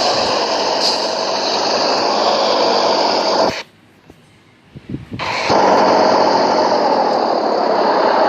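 Engine running loud and steady. It cuts to near quiet for about two seconds midway, with a few small knocks, then comes back just as loud.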